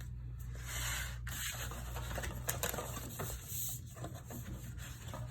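Hands folding and rubbing a cardboard box along its scored creases: dry scraping and rustling with a few light clicks.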